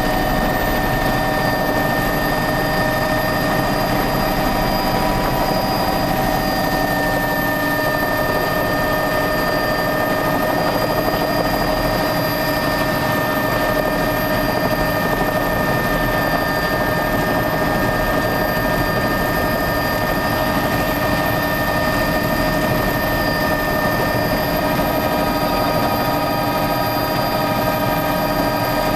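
Helicopter engine and rotor noise heard from inside the cabin as it comes down to land: a steady din with constant high whining tones, which shift slightly in pitch about seven seconds in.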